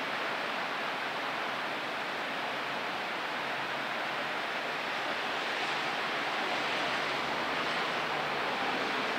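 Steady rain during a thunderstorm: an even, unbroken hiss with no single drops or thunderclaps standing out.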